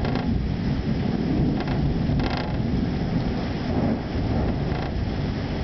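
Thunder rumbling steadily with rain, deep and loud enough to rattle the house's windows.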